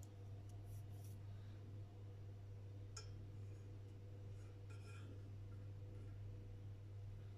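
Faint steady low hum with a few soft clicks and light rubbing as a wooden skewer is pushed into bread dough in a steel pot.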